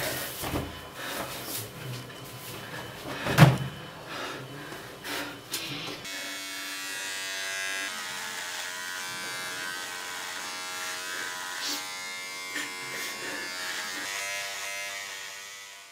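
Electric hair trimmer buzzing steadily against a moustache, starting about six seconds in and fading out at the end. Before it there is rustling and one sharp knock about three and a half seconds in.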